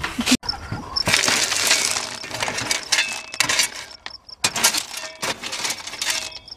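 A steel shovel scraping and pushing rounded river rock inside a galvanized steel stock tank, the stones clattering and clinking against each other in irregular scoops with short pauses between.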